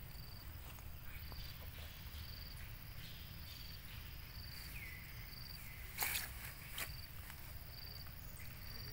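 Forest ambience: an insect chirping briefly and high-pitched about once a second, with a softer falling call every few seconds, over a steady low rumble. A short, sharp crackle about six seconds in, and a fainter one just after.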